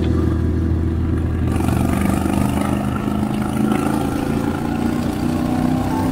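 Motorcycle engine running under load, its pitch rising gently in the second half as the bike accelerates onto a dual carriageway, with wind rush on the microphone growing from about a second and a half in.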